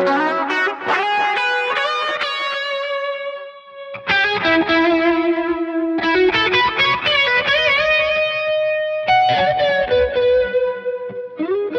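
Overdriven electric guitar playing picked notes and chords with held, vibrato-wobbling notes, heard first through the Crazy Tube Circuits Sidekick's DI output with its speaker simulator, then through the mic'd amps. The playing dips briefly about three and a half seconds in before a loud new phrase starts.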